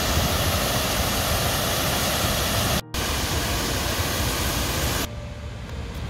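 Loud steady rushing noise with no clear tone, like rushing water or wind. It cuts out briefly about three seconds in and drops to a quieter background about five seconds in.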